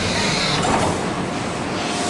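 Taipei Metro C301 electric train running on the rails: a steady rumble and hiss of wheels and traction equipment, with faint steady tones through it.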